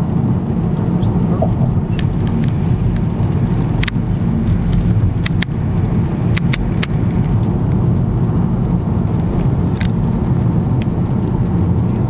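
Steady road and engine noise inside a moving car at highway speed, a constant low rumble, with a few sharp ticks scattered through the middle.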